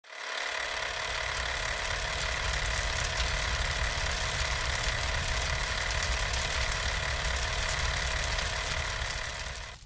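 A steady mechanical whirring clatter with fine rapid clicks, fading in at the start and out near the end.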